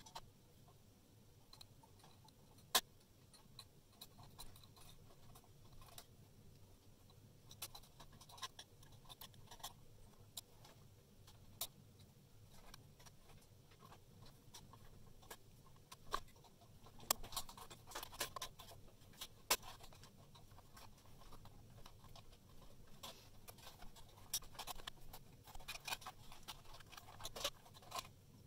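Faint, irregular clicks, taps and scratches of hands fitting wires onto terminals inside a sheet-metal tester chassis, with a busier run of clicks in the second half.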